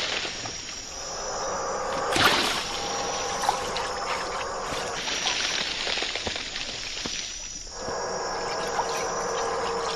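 Tropical forest ambience at night: insects and trickling water in a steady hiss, with scattered small clicks and a brief louder rush about two seconds in.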